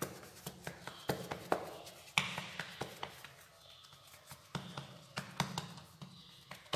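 Bare hands patting and pressing a ball of dough flat on a floured marble countertop: a series of light, irregular taps, a few each second.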